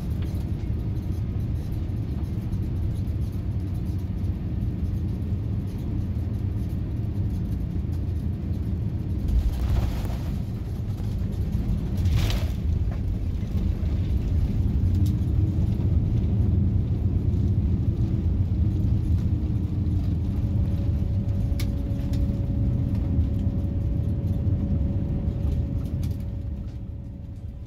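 Cabin noise of a Boeing 787-9 landing: a steady low rumble of engines and airflow, with two brief thuds about ten and twelve seconds in as the wheels touch down. The rumble grows louder during the rollout on the runway and fades near the end.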